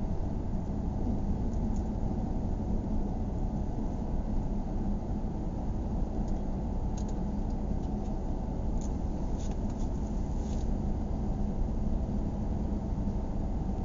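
Steady low rumble of a car's engine and tyres while driving slowly, with a hum under it. A few faint, short high ticks come about halfway through.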